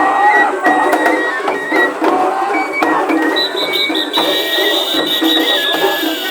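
Japanese festival music played live: a high melody of held notes moving in steps, over repeated drum strokes.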